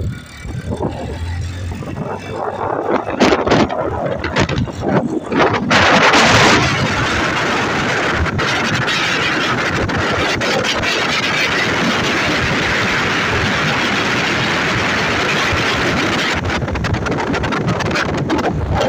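A vehicle on the move, its engine and road noise surging unevenly at first. From about six seconds in it settles into a steady rushing hiss of wind over the microphone.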